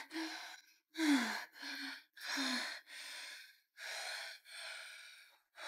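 A woman gasping and breathing hard, about seven breaths at roughly one a second. The first few catch in her throat with a short falling voiced sound, then they turn to plain panting that grows quieter. The sound is that of someone jolting awake in shock.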